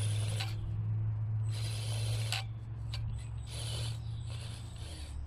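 Traxxas TRX-4M 1/18-scale RC crawler's motor and drivetrain whirring in four short throttle bursts over a steady low hum, as the crawler is worked against an obstacle it is hung up on.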